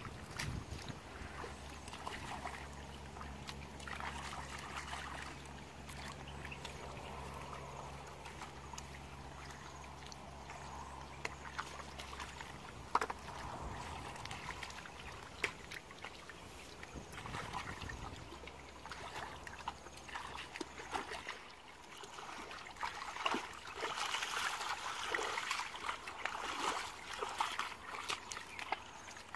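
Shallow muddy water sloshing, trickling and splashing as hands and feet work through a drained pool, groping for fish, with the splashing busier near the end. A low steady hum underneath stops about two-thirds of the way through.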